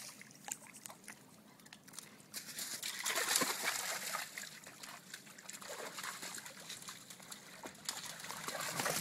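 Two Dobermanns wading through shallow lake water over stones, their paws splashing. The splashing is light at first and grows louder about two and a half seconds in.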